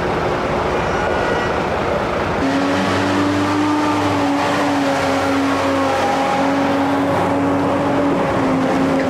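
Heavy military trucks and an armoured vehicle driving past close by, their engines making a dense steady rumble. About two seconds in, a steady droning engine note comes up over the rumble.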